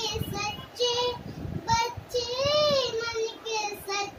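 A young girl singing a song solo with no instrumental accompaniment, in short phrases with held notes that arch up and down in pitch.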